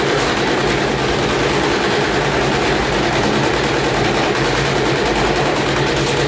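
Gorenje WNHEI washing machine spinning with a soaking wet load, its drum banging and rattling in a loud, rapid, continuous clatter as the machine shakes itself apart.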